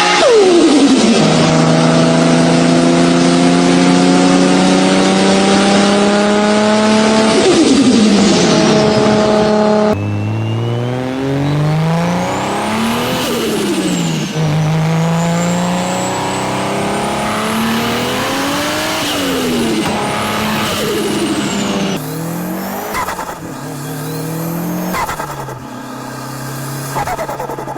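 Turbocharged sports car engines revving and accelerating in a run of clips that cut from one car to another about every ten seconds. The engine pitch climbs and drops on each throttle blip, with high turbo whistles rising and falling alongside.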